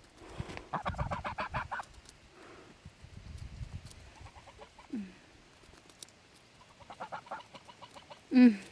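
Domestic geese calling in several short runs of rapid, soft clucking notes, with a louder call near the end.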